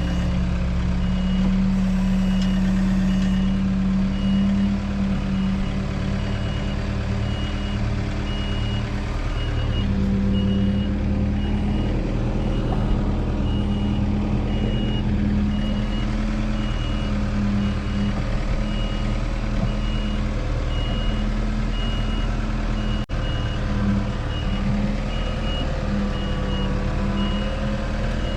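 Tractor engine running steadily under load, with a high electronic beep repeating about once a second over it.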